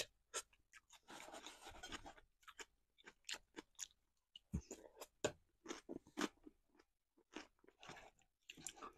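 Faint, close-up chewing and wet mouth sounds of a person eating a spoonful of soft food, with scattered short clicks.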